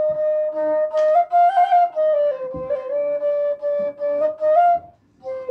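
A bamboo bass bansuri in D (Punam Flutes) playing a slow melodic phrase. A held note steps up about a second in, drops to a lower note that it dwells on, rises again, and stops briefly near the end.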